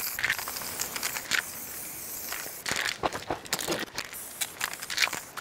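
Scattered crunching and rustling of footsteps and clothing on the range floor, a run of sharper ticks about three seconds in, over a steady hiss.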